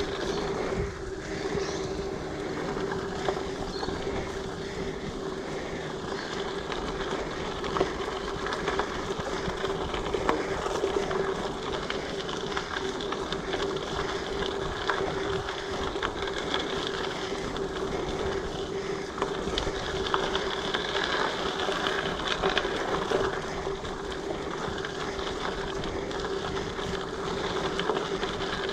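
A mountain bike rolling over a dirt trail: a steady hum and rumble from the knobby tyres, with scattered short rattles and knocks as it goes over bumps.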